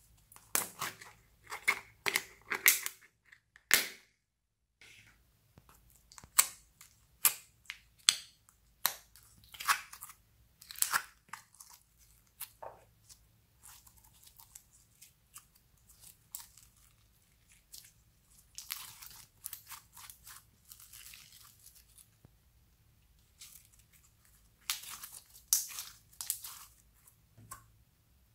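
A plastic tub of soft modelling clay being handled and opened with sharp clicks and snaps, then the clay pulled and stretched by hand, giving sticky crackling and tearing sounds in several short spells.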